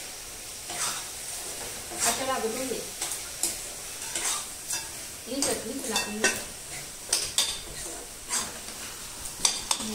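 Metal spatula scraping and stirring in a black iron wok with irregular strokes, while the food in it sizzles over the gas flame.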